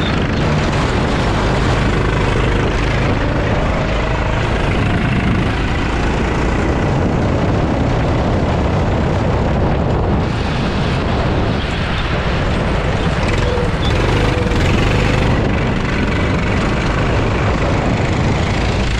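Go-kart driving on a wet track, heard from on board: the kart's engine running steadily under heavy wind buffeting on the microphone. It eases slightly for a moment about ten seconds in.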